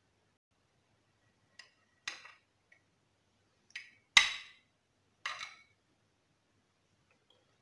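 Knife blade clinking against a ceramic serving plate as a glazed loaf cake is sliced: about six short clinks, the loudest about four seconds in.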